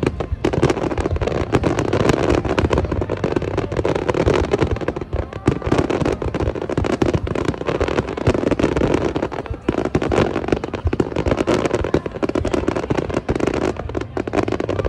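Aerial fireworks shells bursting in rapid, overlapping succession: a continuous stream of bangs and crackles with no pause, typical of a fireworks grand finale.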